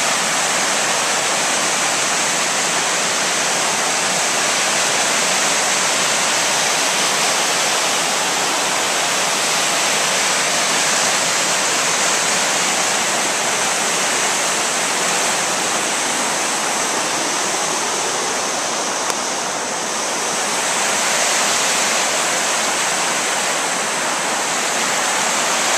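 Creek water rushing in whitewater cascades over sloping bedrock and boulders: a steady, unbroken rush.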